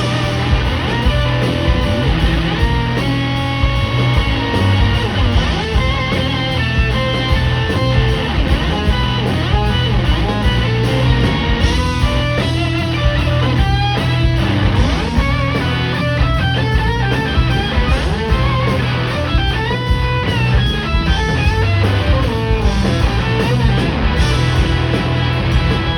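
Live blues-rock band playing loud: a lead electric guitar line over bass and drums, with no singing.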